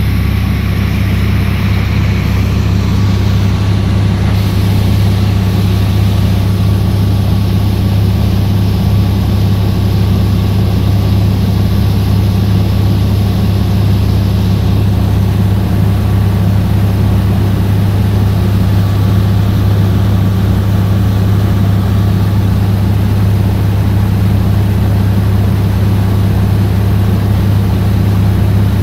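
Engine of a small fibreglass passenger boat running steadily under way, a loud constant low drone with an even rushing noise over it.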